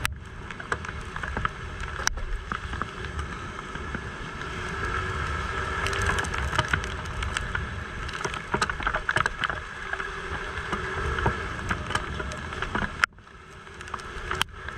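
Motor scooter ridden on a rain-wet road: wind rumbling on the action camera's microphone over the engine and tyre noise, with many scattered clicks. Near the end the sound drops away suddenly and builds back up.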